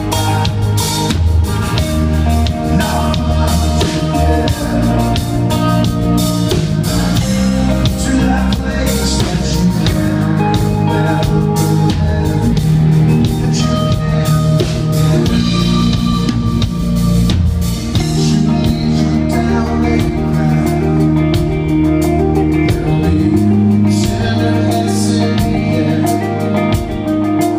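Live rock band playing: electric guitars, bass and a drum kit. The low bass drops back about two-thirds of the way through.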